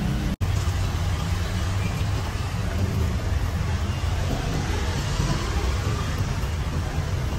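Steady street background noise dominated by a low rumble of road traffic, broken by a momentary total dropout about half a second in.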